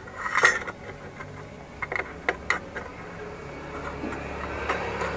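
Sharp metallic clinks and knocks as a silencer insert is fitted into a motorcycle muffler and the muffler is slid into place. From about three seconds in, a steady low rumbling noise builds.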